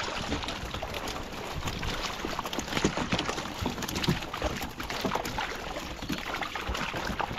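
Water splashing and sloshing as a net packed with live cisco is hauled by hand at the water's surface, with many small irregular splashes from the fish thrashing in the mesh.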